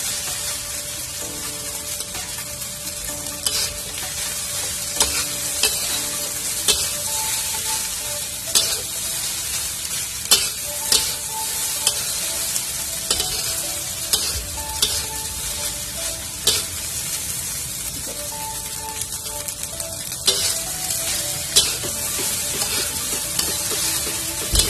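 Fried rice sizzling in a wok while a metal spatula stirs and tosses it, scraping and clinking against the pan at irregular moments about once a second over a steady sizzle.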